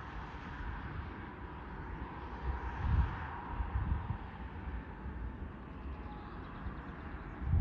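Distant jet airliner engines give a steady hiss with a faint whine. Gusts of wind buffet the microphone with low rumbles, strongest about three seconds in.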